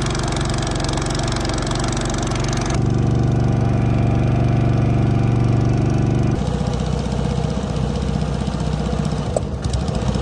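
An engine running steadily. Its note and loudness change abruptly twice, about three and six seconds in.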